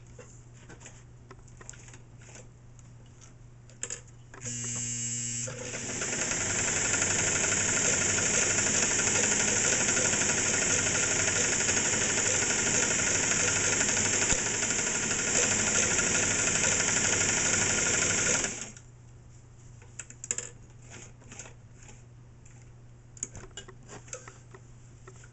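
Singer 237 sewing machine stitching through several folded layers of heavy upholstery fabric: a brief first burst about four and a half seconds in, then it runs steadily at speed for about twelve seconds and stops abruptly. Light clicks of fabric being handled come before and after the run.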